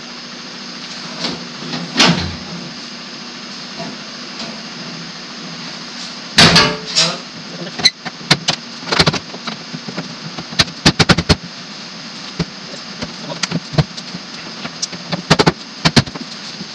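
Aftermarket sheet-steel rear apron panel knocking and clanking against a VW Beetle's rear body as it is held up and worked into place by hand. The knocks are scattered: the loudest comes about six and a half seconds in, and a quick run of clanks follows around eleven seconds, over a steady background hum.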